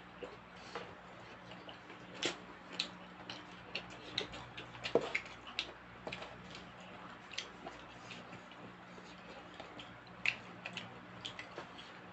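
Eating sounds: irregular small clicks and ticks of mouths and utensils at a meal, over a faint steady hum.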